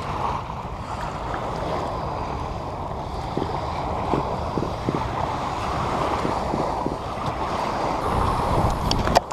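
Wind buffeting the microphone over waves washing in the water, steady throughout, with a few sharp clicks near the end.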